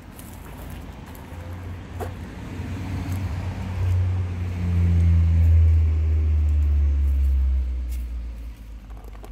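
A motor vehicle passing close by: a low engine drone that grows over several seconds, peaks a little past the middle and fades away near the end.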